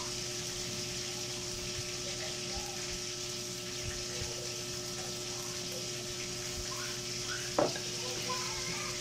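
Steady background hiss with a constant faint hum, scattered faint chirps, and one short louder sound about three-quarters of the way through.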